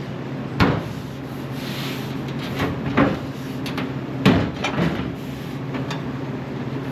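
Sheet-metal corner patch panel being handled and fitted into the body: metal scraping and rubbing, with three sharp knocks.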